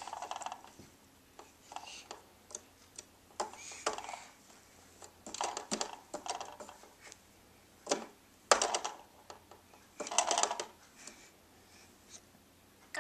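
Scattered light knocks and clicks of a baby's hands on a plastic toy box with ring openings, irregular and a few seconds apart, a few of them clattering briefly.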